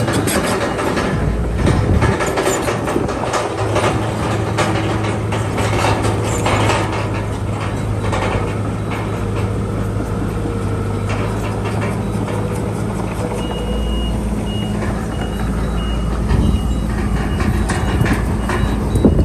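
Bulldozer's diesel engine running steadily under the clank and rattle of its steel crawler tracks, with a reversing alarm beeping repeatedly for a few seconds past the middle.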